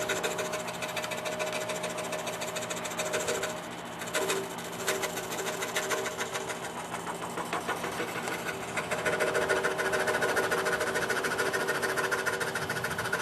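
DeWalt scroll saw running, its blade stroking rapidly up and down as it cuts through wood. The sound is a steady, fast buzz that gets louder about nine seconds in.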